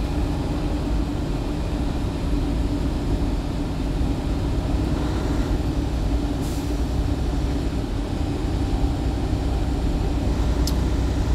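Steady in-cab noise of a truck driving at highway speed: a low engine drone with a steady hum and tyre noise on the wet, snowy road. A couple of faint ticks come in the second half.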